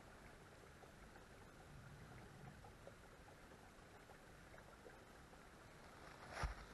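Near silence with a faint steady hiss, broken near the end by a sudden thump and rustle.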